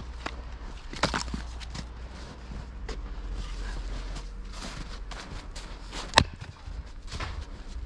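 Splitting maul striking a firewood round on a chopping block, one sharp loud crack about six seconds in. Before it, a few lighter wooden knocks as split pieces are cleared off the block and a new piece is set up.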